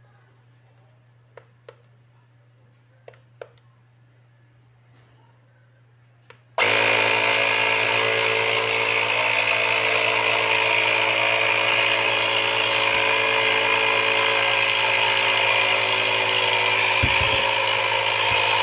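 A few faint clicks. Then, about six and a half seconds in, the CXY TC17 cordless tire inflator's small electric compressor starts abruptly and runs loud and steady, pumping air into a football.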